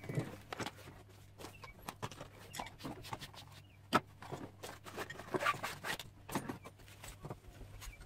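Seat belt webbing and plastic retractor and trim parts being handled: scattered light clicks and rustles, the sharpest click about four seconds in.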